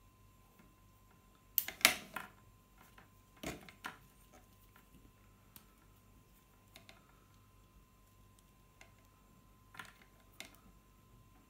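Clicks and clatter of crocodile clips and multimeter test leads being handled and clipped onto small drill parts on a table: a loud cluster about two seconds in, another about a second and a half later, scattered light ticks, and two sharp clicks near the end.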